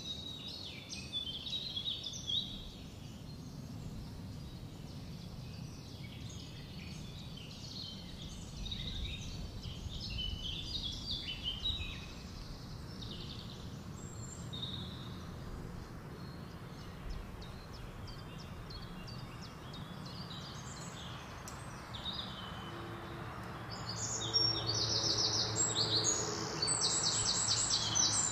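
Wild birds singing and chirping over a steady low rumble of outdoor ambience. Near the end a loud, fast trill of repeated high notes sounds, with a low hum coming in under it.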